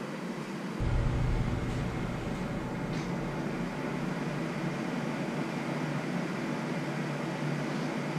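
Steady mechanical hum and noise, with a deeper rumble that comes in suddenly about a second in, and a few faint clicks.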